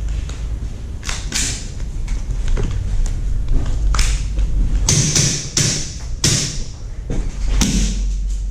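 A series of irregular thumps and short rustling hisses over a steady low rumble, about six of them, the loudest in the second half.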